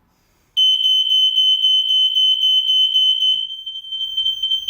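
Mains-powered interlinked ionisation smoke alarm sounding on test after its test button is pressed: a loud, high-pitched steady tone that starts abruptly about half a second in and keeps going, a little quieter after about three seconds.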